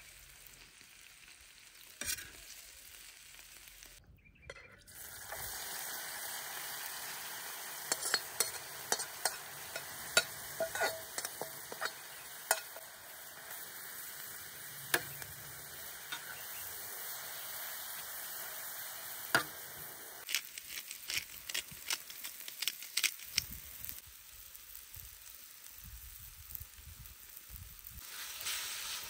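Chopped vegetables sizzling and frying in a wide, shallow steel pan over charcoal, with a metal spatula scraping and clicking against the pan as they are stirred. The sizzle grows louder about five seconds in.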